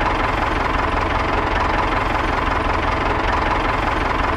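Tractor engine idling steadily, with a rapid, even low pulsing.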